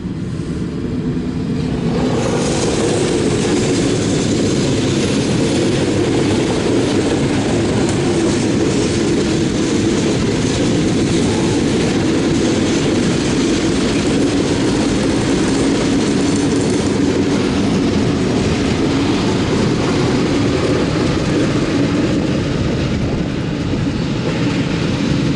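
CSX local freight train rolling past: a steady rumble and rattle of wheels on the rails. It builds over the first couple of seconds and then holds.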